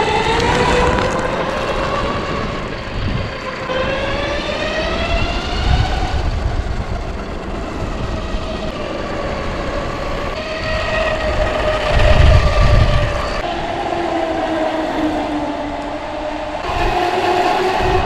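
Electric skateboard's geared drive whining as it rides, the pitch rising and falling with speed, over road rumble and wind on the microphone, with a louder rumble about twelve seconds in. The board runs on freshly fitted solid tyres.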